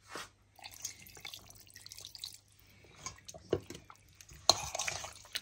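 Water poured into a steel bowl of raw chicken strips, then a hand mixing the chicken through the liquid with wet splashing, loudest near the end.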